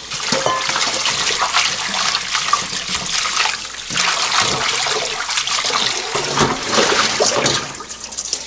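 Kitchen tap water pouring and splashing into a stainless steel sink and over a bowl of shepherd's purse greens being rinsed and turned by hand, with small knocks of the bowl and strainer; the splashing eases near the end.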